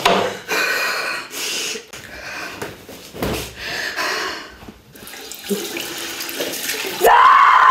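Water running and splashing in a restroom sink in irregular gushes. Near the end a woman's loud cry breaks in.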